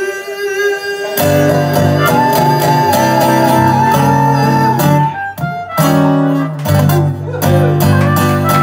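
Harmonica solo over acoustic guitar accompaniment in a blues song: the harmonica plays held notes that bend in pitch while the guitar keeps the chords going underneath, with a short break in the line about five seconds in.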